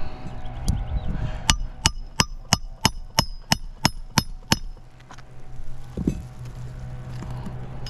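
Hammer driving a roofing nail into a shingle: about ten quick, even strikes at roughly three a second, each with a short metallic ring. A single duller thump follows near the end.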